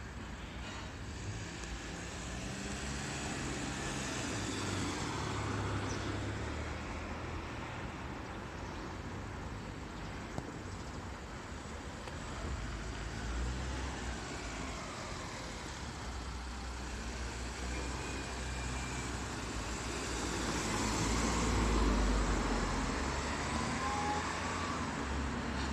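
Road traffic passing a station forecourt: a steady wash of engine and tyre noise that swells as vehicles go by, loudest near the end.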